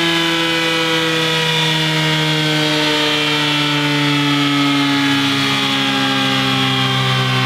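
Honda CB1000R's inline-four engine running on a dyno through its stock exhaust, its revs slowly dropping in a steady, gradually falling drone.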